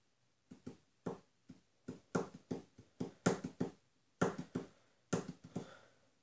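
Fingers tapping and drumming on a wooden TV-stand shelf: about twenty quick sharp taps in uneven groups, starting about half a second in.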